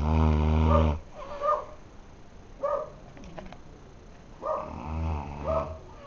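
A man snoring: two long, low, rattling snores, one at the start and one about four and a half seconds in, each followed by short puffing breaths.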